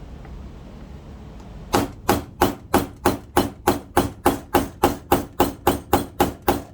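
A hammer striking a pin punch to drive out the roll pin of a Taurus 856 revolver, a tight pin. The sharp, even strikes begin about two seconds in and come about three a second.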